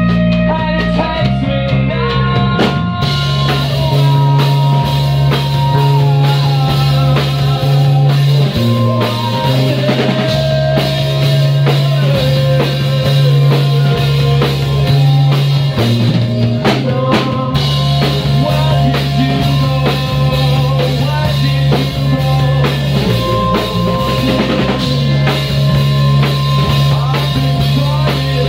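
Live rock band playing loud: an electric guitar plays held, sliding lead notes over a steady bass line and a drum kit.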